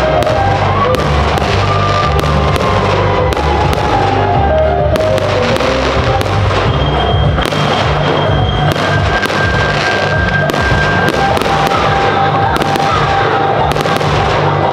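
Fireworks display set to music: many sharp reports of bursting shells over a steady music soundtrack.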